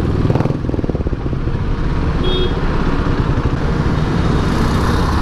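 Motorcycle engines in city traffic: a steady single-cylinder thump at first, then engine and road noise as the bike pulls away, with a brief beep about two seconds in.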